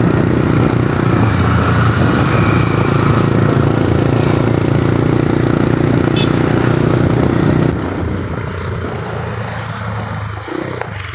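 Wind rushing over the microphone with a motorcycle engine running underneath, on a moving motorcycle in city traffic. The rush eases and gets quieter about eight seconds in.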